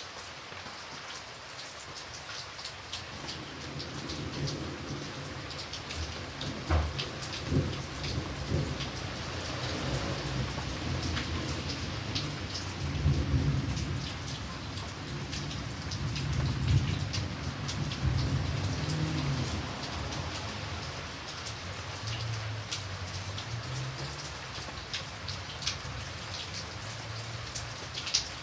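Light rain falling steadily, with many single drops ticking through the hiss. A long low rumble of thunder builds a few seconds in, is loudest around the middle and dies away near the end.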